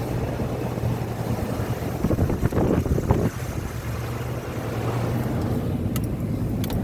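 Car engine and road noise heard from inside the cabin as the car turns off the highway, a steady low hum with a louder, rougher stretch about two to three seconds in.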